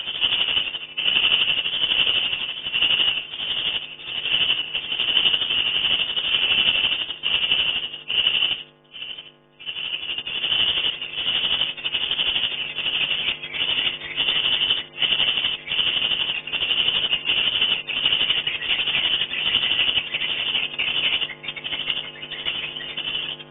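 Swiftlets twittering: a dense, rapid run of high chirps that breaks off briefly about nine seconds in and then resumes, over a steady low hum.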